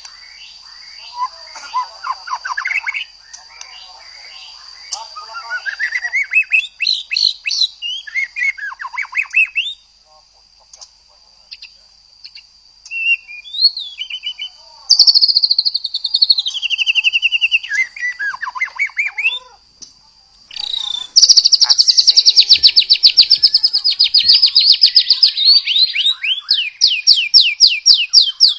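White-rumped shama (murai batu) singing a varied song of clear whistles, slurred glides and quick trills. Over the last several seconds it breaks into long, loud runs of rapid repeated sharp notes. A steady high thin tone sounds under the song through roughly the first half.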